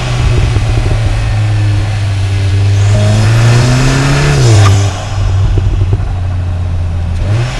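Stage 1 tuned Cupra Ateca's EA888 gen 3 2.0-litre turbocharged four-cylinder under acceleration, heard through microphones at the intake and exhaust. The engine note climbs steadily, then drops sharply a little before five seconds in, with a short sharp sound at the drop.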